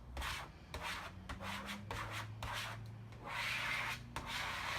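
A plastic credit card rubbed in repeated strokes over a vinyl decal's transfer paper on the trailer's metal skin, pressing the decal down. It makes a dry scraping, with one longer stroke near the end.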